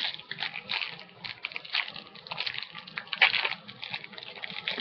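Plastic candy wrapper crinkling as a bag of bonbons is handled and opened, in a quick irregular series of crackles.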